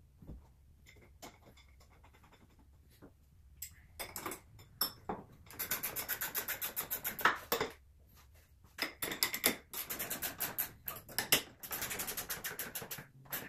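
Steel door brackets and carriage bolts being handled and fastened: a few light metal clinks, then two runs of rapid, even clicking lasting a few seconds each as the bolts are tightened.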